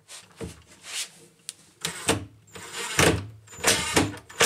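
Cordless drill driving a screw into a wooden sideboard in several short bursts, its motor starting and stopping.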